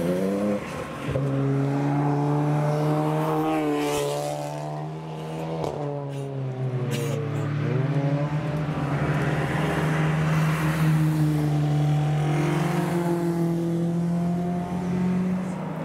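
Racing car engines running hard, with cars passing by about four and six seconds in, their engine notes falling in pitch as they go past.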